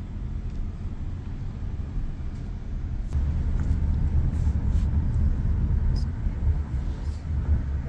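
A car driving, with a steady low rumble that gets louder about three seconds in and a few faint clicks.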